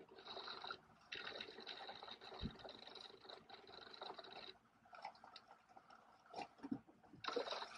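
Aluminium foil crinkling and rustling as a foil-wrapped takeout item is unwrapped by hand. It comes in a long stretch of rustling, then a quieter gap with a few small clicks, then one more short burst of crinkling near the end.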